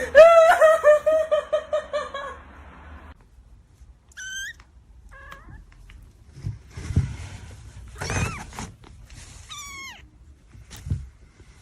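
A cat meowing: one long, loud, wavering call, then four or five shorter meows over the following seconds, with a few soft thumps in between.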